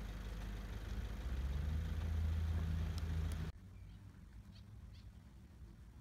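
A low, steady engine-like hum that grows a little louder, then cuts off abruptly about three and a half seconds in. A much quieter background follows, with two faint high chirps.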